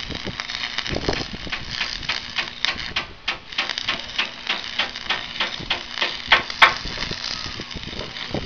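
Hammering on a building site: an irregular run of sharp knocks, several a second, with the two loudest blows about three quarters of the way through.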